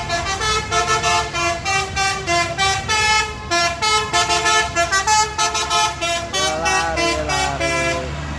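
Telolet basuri musical air horn on an Agramas bus playing a quick melody of short, clear notes, with a few sliding notes near the end before it cuts off abruptly. A low steady rumble runs underneath.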